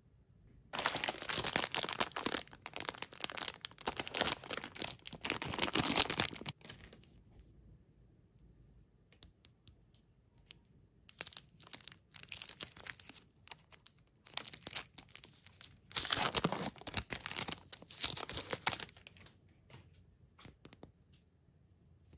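Plastic candy wrappers crinkling and tearing, in two long dense bursts of crackling, about a second in and again about two-thirds of the way through, with scattered light crinkles and clicks between them. The later burst is the Kit Kat bar's plastic wrapper being torn open and peeled off.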